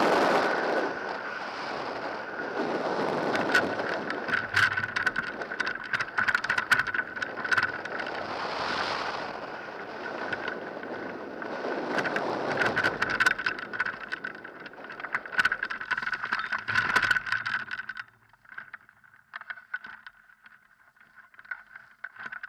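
Airflow buffeting the microphone of a hang glider's wing-mounted camera during the low final approach, with many sharp crackles. The rush falls away sharply near the end as the glider slows and comes down in the field.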